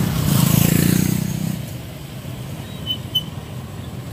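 A motorbike engine passing close by, loudest in the first second and a half and then fading away. About three seconds in there are two short high-pitched chirps.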